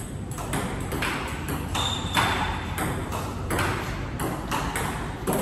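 Table tennis rally: the plastic ball clicking off the table and the bats in quick alternation, about three to four hits a second, as topspin drives are blocked back with a Donic Alligator Anti 1.0 mm anti-spin rubber.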